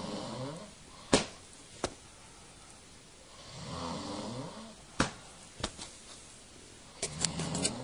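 A man snoring: three slow, rasping snores about three and a half seconds apart. Sharp short smacks come between the snores, the loudest about a second in and five seconds in.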